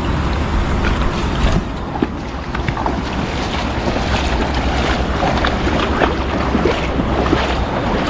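Wind buffeting the microphone, with water splashing as legs wade through a shallow river, many short splashes from about two seconds in.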